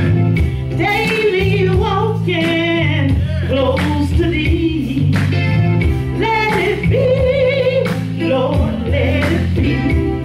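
Live gospel singing: a woman's voice with a man's, sung into microphones over a band backing of bass and a regular drum beat.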